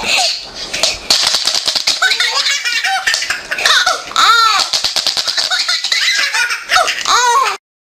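A baby laughing hard in repeated bursts of belly laughter and giggles, cutting off suddenly near the end.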